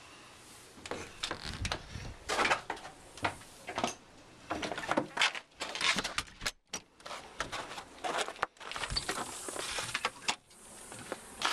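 Front door being opened from inside: a brass doorknob turned with its latch clicking, then a storm door's lever handle worked and the door pushed open. Irregular clicks, knocks and rattles of door hardware, mixed with handling noise.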